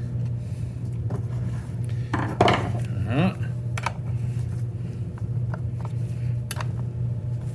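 Scattered sharp metal clinks and taps of a wrench working the chainsaw's bar nuts and chain, over a steady low hum.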